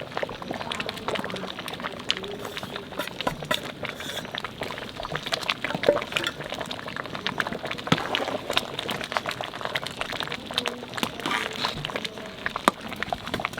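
Vegetable khichuri bubbling and popping in the cooking pot, a steady scatter of small pops and crackles.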